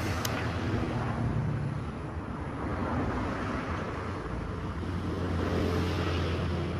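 Steady rumble of road traffic with a low engine hum, and a brief click right at the start.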